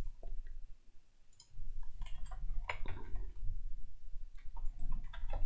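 Typing on a computer keyboard: scattered key clicks, sparse for the first second and a half, then quicker and denser.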